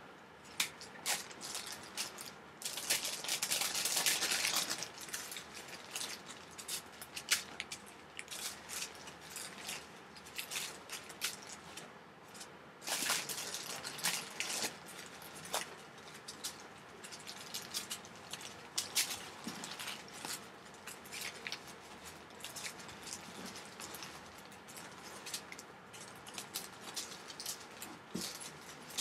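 Small plastic zip bags of diamond-painting drills crinkling and rustling as they are pulled from a larger plastic bag and laid out, with louder bursts of crinkling about three and thirteen seconds in.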